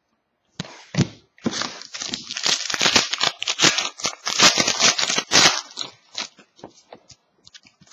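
Trading-card pack wrapper being torn open and crinkled, a dense crackling for about four seconds, followed by scattered light clicks as the cards are handled.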